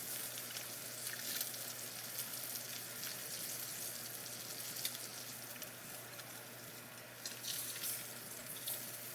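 Steak searing in butter in a very hot pan: a steady sizzle with small crackles throughout.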